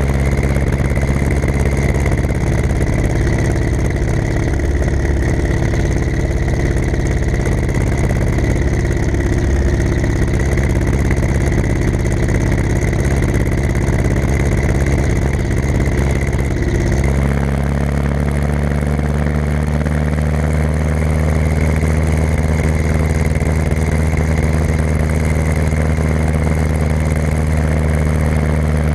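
Ursus C-360 tractor's four-cylinder diesel engine running steadily. About two-thirds of the way through, its note shifts abruptly to a steadier tone.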